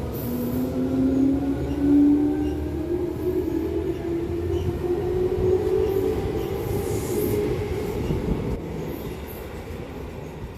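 Electric commuter train passing through a station at low speed. Its traction motors give a whine that climbs steadily in pitch over a rumble of wheels on rail. The sound is loudest about two seconds in and fades near the end.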